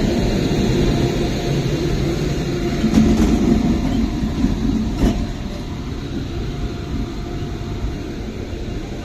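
Indian Railways electric locomotive running past and away along the track: a steady rumble of wheels and running gear with a low hum, a clank about 3 s in and another about 5 s in, then fading as it draws away.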